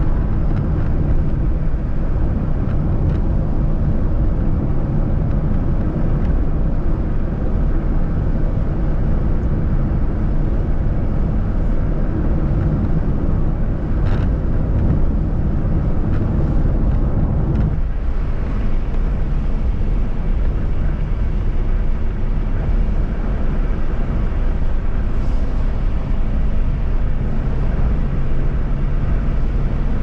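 A car driving along a highway: steady engine, tyre and wind noise, heaviest in the low end. It eases slightly about eighteen seconds in.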